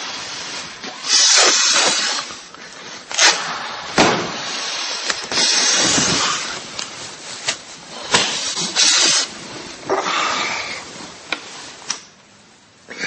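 Loud, irregular snoring: a string of rasping snorts and noisy breaths, each lasting about half a second to a second, with sharp clicks between them.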